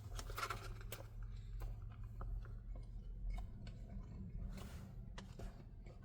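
A person chewing and eating food, with small scattered mouth and food clicks, over a steady low hum.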